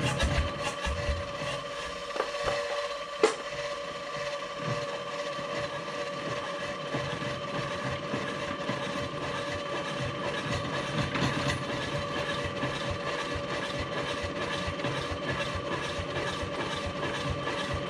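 Electric starting cart turning over the two-cylinder diesel of a 1961 Zetor 25 tractor through its crank: a steady motor whine over a fast, even mechanical rhythm, with one sharp click about three seconds in. This is a cold start of an engine that has not run for 15 years, cranking without firing yet.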